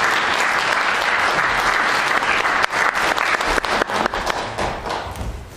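Audience applauding in a hall, thinning out to scattered individual claps near the end.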